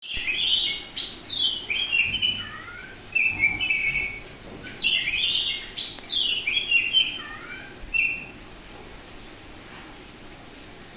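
Oriental magpie-robin (kacer) singing: two long phrases of varied whistles and downward-sliding notes, the song stopping about eight seconds in.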